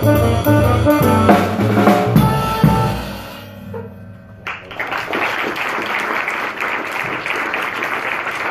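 Small jazz combo of horns, piano, upright bass and drum kit playing its last phrases and a closing chord that rings out and fades. About a second later the audience breaks into applause.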